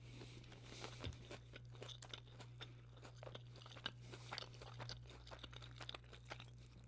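Close-miked chewing of a crispy fried chicken tender: faint, irregular crunches and small mouth clicks, over a steady low hum.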